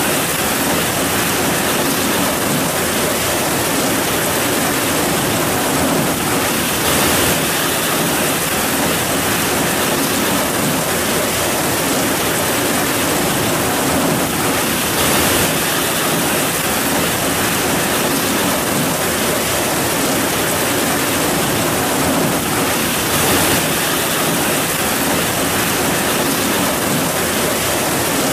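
Heavy rain falling steadily: a dense, even hiss that swells slightly a few times.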